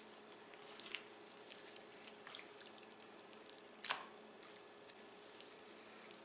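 Faint wet squelching of a gloved hand rubbing thick yogurt-and-spice marinade into raw chicken legs in a bowl: a few soft squishes, the loudest just before four seconds in.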